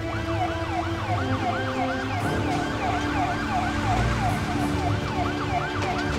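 Fire engine siren sounding a fast yelp, its pitch sweeping up and down about three times a second.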